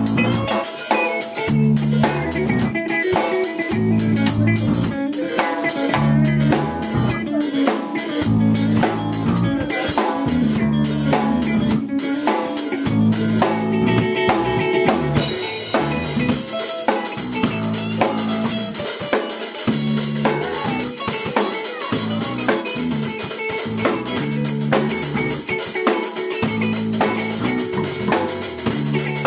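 Small live band playing a rock song on drum kit and guitar, with a repeating low line under a steady beat. The high cymbal wash cuts out for about a second midway, then comes back in.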